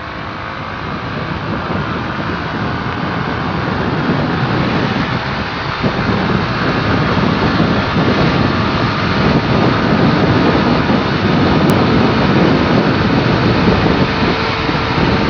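Wind rushing over the microphone while riding a Yamaha Mio scooter, with the scooter running beneath it. It grows steadily louder as the scooter picks up speed.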